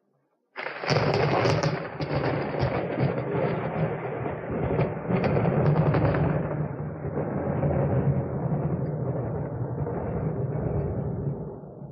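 A thunderclap: after a moment of silence, a sudden sharp crackling crack about half a second in, then a long rolling rumble that slowly weakens.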